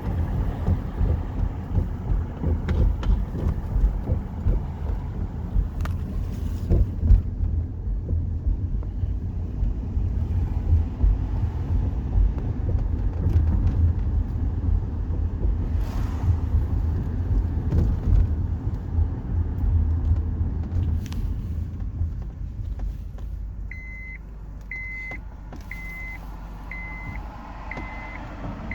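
Car coilover suspension making knocks and clunks over bumps on top of a loud, low road rumble as the car drives. Near the end the rumble drops and a short electronic beep sounds about once a second, six times.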